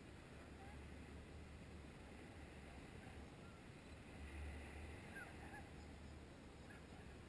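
Near silence: low wind rumble on the microphone and a few faint, short bird chirps.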